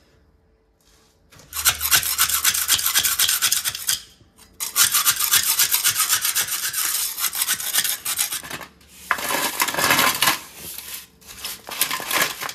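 A metal scraper rasping along the rough edge of newly cast concrete where it meets the floor, in three long spells after a quiet start. It is scraping off concrete that bled under the formwork before it sets hard. Near the end a hand brush sweeps the loosened grit into a plastic dustpan.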